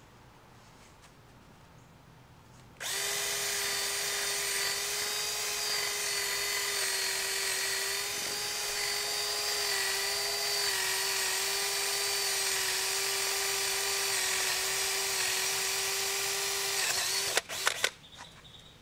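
Cordless drill with a twist bit boring into a wooden board: a steady motor whine at one even pitch starts about three seconds in and runs for about fourteen seconds, then stops with a few sharp clicks.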